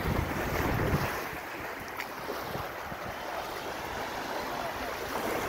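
Wind buffeting the microphone, heavy for about the first second and then easing, over a steady hiss of small waves washing onto a sandy shore.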